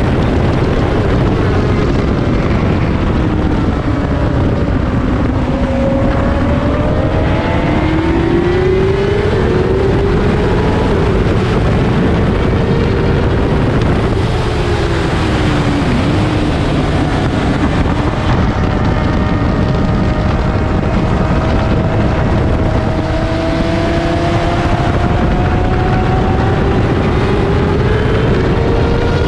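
Sport motorcycle engine at track speed, its pitch climbing as it accelerates and dropping as it slows, under heavy wind noise on the microphone.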